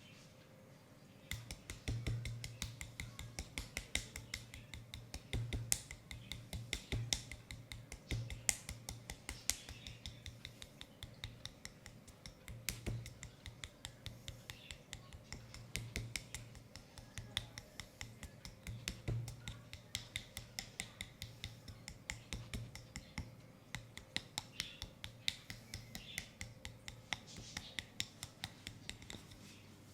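Hands rapidly tapping and slapping a bare, oiled leg in a percussive massage, several light slaps a second, each with a soft thud. It starts about a second in and stops near the end.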